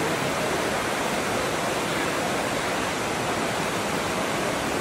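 Underground stream rushing steadily over rocks inside a cave.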